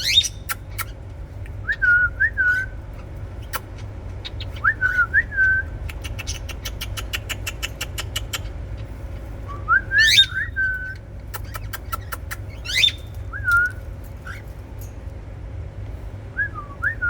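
Cockatiel whistling short warbled phrases every few seconds, some ending in a quick whistle that sweeps sharply upward. Midway there is a quick run of sharp clicks, about seven a second, over a low steady hum.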